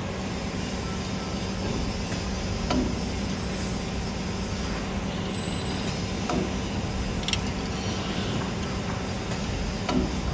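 3D wire bending machine running: a steady low mechanical hum, with a few short sharp clicks as the bending head feeds and bends the steel wire.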